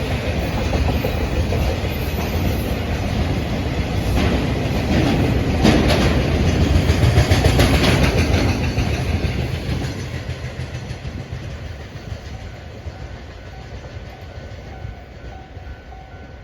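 A freight train of tank wagons behind an EF65 electric locomotive rolling past, its wheels rumbling and clattering over the rail joints. The clatter is loudest about halfway through, then fades as the end of the train goes by. Near the end a level-crossing alarm rings faintly and repeatedly.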